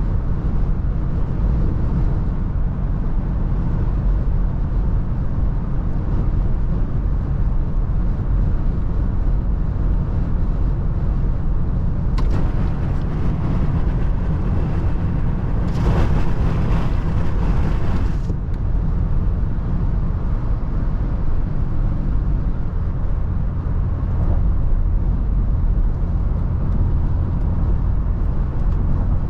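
Steady low rumble of a Toyota FJ Cruiser driving in heavy wind, with wind and road noise. About twelve seconds in a brighter hiss rises over it, strongest for a couple of seconds around the middle, then falls back.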